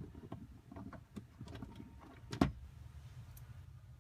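Small clicks and rattles of hands and tools working on a car's plastic dashboard trim and screws, with one sharper knock about two and a half seconds in.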